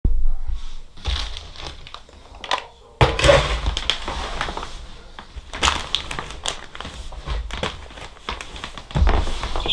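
Irregular handling noise: crinkling and rustling with scattered clicks and knocks, loudest at the start, about 3 s in and about 9 s in, as of computer parts and their packaging being handled.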